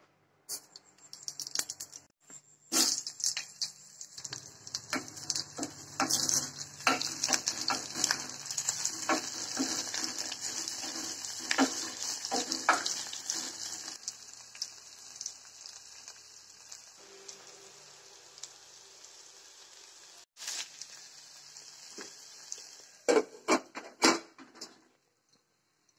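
Sliced onions sizzling in hot oil in a stainless steel pot, with a spatula scraping and clicking against the pot as they are stirred. About a second before the end, a glass pot lid clatters several times as it is set on the pot.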